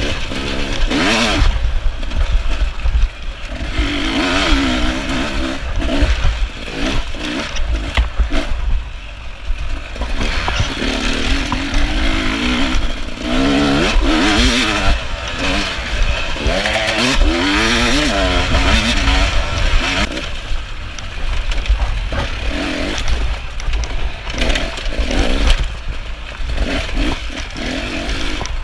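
Beta 300RR two-stroke dirt bike engine revving hard and unevenly as the throttle is worked over rough trail. The pitch rises and falls again and again, over a constant low rumble.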